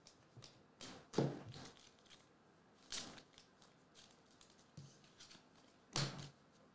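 Trading cards and foil card packs being handled on a table: a few short rustles and slides, the loudest about a second in, others about three and six seconds in, with small clicks between.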